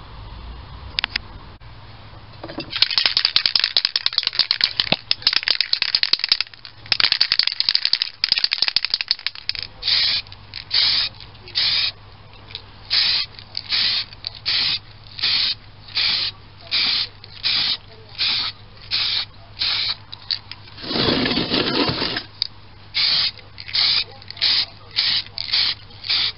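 Aerosol spray can of primer hissing: a few seconds of near-continuous spraying, then a long run of short, even puffs about three every two seconds, laying on very thin coats. One fuller, longer burst comes about two-thirds of the way through.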